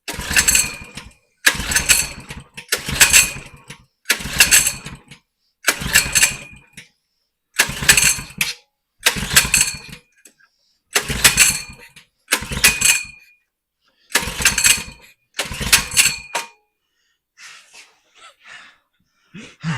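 Coleman 100cc minibike's small engine being pull-started again and again with the recoil starter, about eleven pulls in a row, each cranking it briefly without catching.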